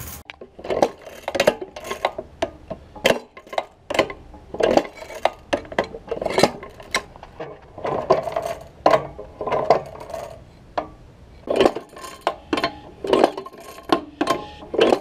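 1934 Maytag 92 single-cylinder two-stroke engine being turned over again and again without firing: a run of metallic clanks and clicks, about one or two a second. There is no spark at the plug, which the owner suspects is from a broken plug wire or a bad condenser.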